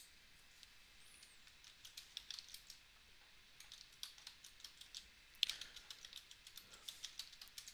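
Faint computer keyboard keystrokes in several short, irregular runs, typing a command.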